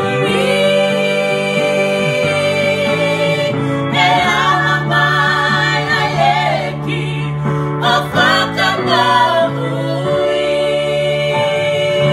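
Four women singing a gospel song in harmony, holding long chords, with ornamented vocal runs about four seconds in and again around eight seconds in.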